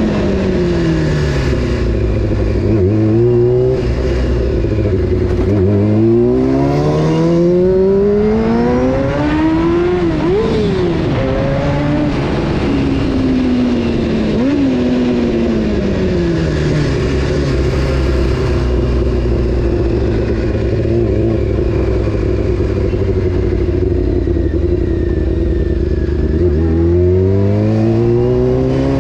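Honda CBR600 F4's inline-four engine under a riding rider, revs falling then climbing steeply and dropping back a couple of times. A long steady stretch at low revs follows, and the revs climb again near the end.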